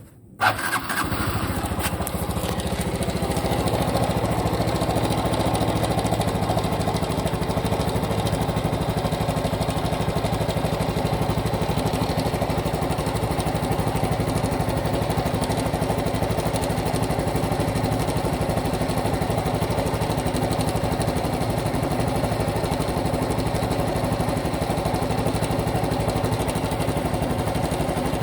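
Honda Super Cub Pro's small single-cylinder four-stroke engine starting about half a second in, then idling steadily, settling a little louder after a few seconds. It is run to check an abnormal engine noise after an oil change meant to cure it.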